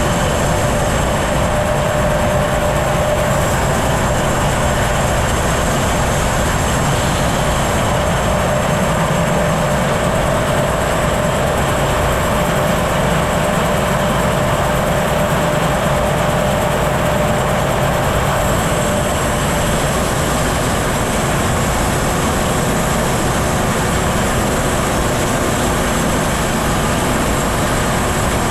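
Homemade bandsaw mill running steady and unbroken while milling cedar, with the engine drone and blade noise holding at one level throughout.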